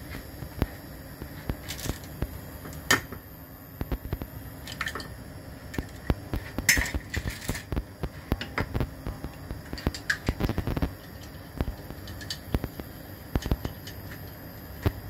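Cooking oil heating in a stainless steel frying pan, with irregular small pops and crackles over a steady low background noise and a few louder clicks, as the oil comes up to frying temperature.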